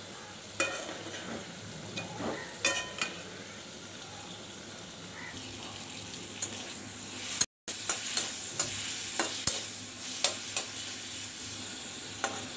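A metal spoon scrapes and clinks now and then in a pot of boiled cut yardlong beans. After a cut about halfway through, shrimp sizzle steadily as they fry in shallow oil in a wok, with many small crackles and a fork scraping the pan.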